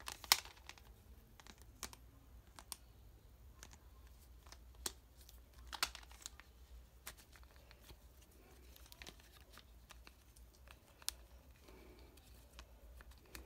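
Scattered plastic clicks and rubbing from the orange plastic belt strap of a Kamen Rider Ghost Driver toy being handled and adjusted, with the sharpest click just after the start and others near six and eleven seconds.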